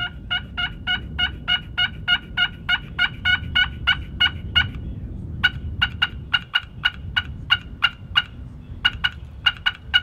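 Wooden push-button turkey call worked in quick strokes: a long string of short, sharp notes, about three a second, breaking off briefly about five seconds in and again near eight and a half seconds.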